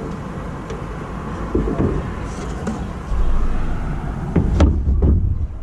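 A Ford F-150 tail light's bulb socket being handled and twisted out of its housing: a few small plastic clicks and knocks over a low rumble that swells twice in the second half.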